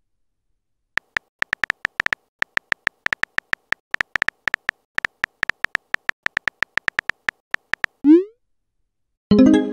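Texting-app keyboard typing sounds: quick, uneven taps for about seven seconds as a message is typed out. Then a short rising swoop and a brief chime follow as the message is sent.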